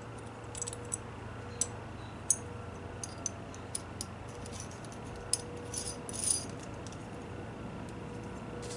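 Small metal router parts, a template guide and its adapter ring, clicking and clinking lightly as they are handled and fitted together by hand. The light clicks are scattered, with a short run of them about six seconds in.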